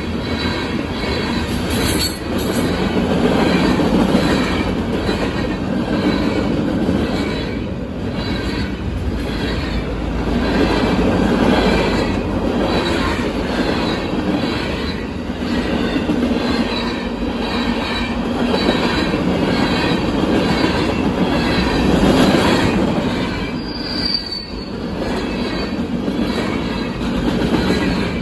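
Freight cars of a long mixed freight train rolling past close by at speed. The wheels rumble and clatter steadily on the rails, and the sound swells and eases as each car goes by.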